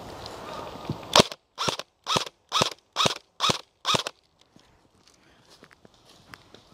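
An airsoft gun firing seven sharp shots in quick succession, about two a second, stopping about four seconds in.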